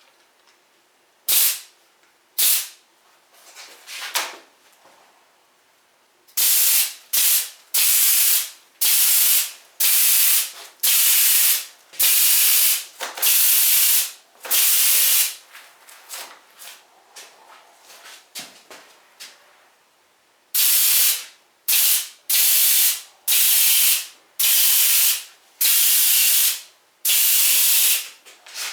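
Siphon-feed spray gun driven by an air compressor, hissing as it sprays wood ash slurry in short trigger bursts about a second long, one after another, with a pause of a few seconds in the middle.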